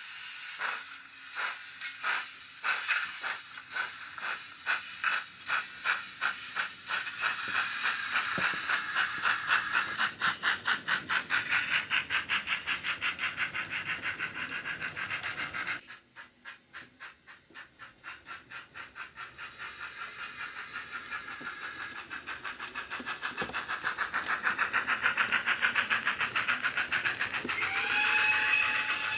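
Sound decoder of a Dapol OO gauge GWR Large Prairie model steam locomotive, playing Jamie Goodman's sound file through a small speaker in the smokebox. Its exhaust beats start slow and quicken into a fast, steady rhythm as the engine gets away. They drop much quieter about halfway through, then build again, and a whistle sounds near the end.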